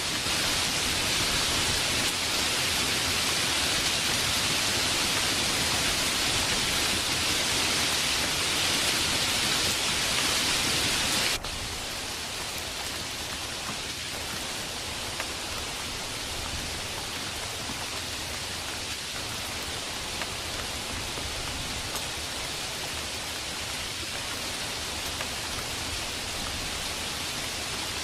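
Steady rain, an even hiss. About eleven seconds in it cuts suddenly to a softer level and carries on.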